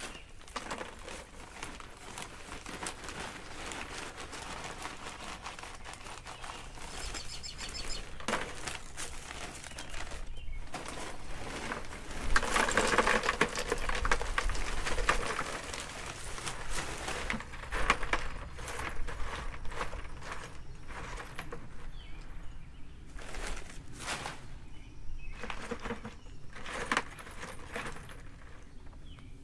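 Lava rock poured from a bag into a plastic bucket, the rocks rattling in for a few seconds near the middle, among scattered knocks and handling noises as the coarse filter layer goes in.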